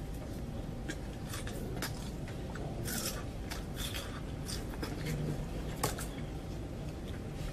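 A person eating drunken mud snails off a skewer: irregular wet clicks, smacks and slurps from the mouth, one longer slurp about three seconds in and the sharpest click just before six seconds, over a steady low hum.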